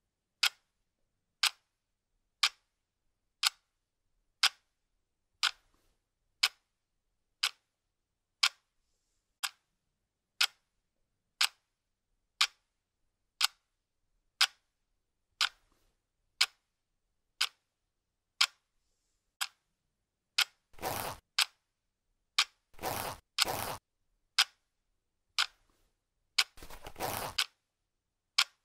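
Clock ticking steadily, about one tick a second. In the last third come three short rasping noises as a zippered sunglasses case is unzipped.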